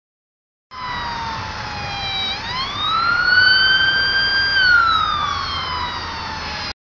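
Emergency vehicle siren wailing through one slow cycle: the pitch falls, rises steeply about two seconds in, holds, then falls again. It starts about a second in and cuts off suddenly near the end.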